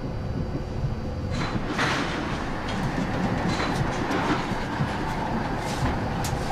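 Heavy power-plant machinery rumbling continuously with irregular rattling and knocking: plant shaking as steam pressure builds in the reactor's cooling system.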